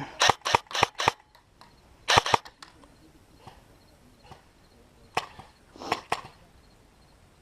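Airsoft guns firing shots as sharp pops: four quick ones in the first second, a short cluster about two seconds in, and three more near the end.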